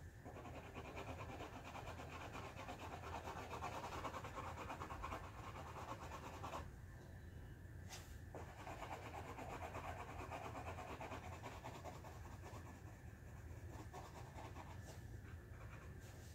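Faint, rapid back-and-forth strokes of coloring on a paper coloring page, a steady scratchy rubbing that stops for about a second near the middle before going on.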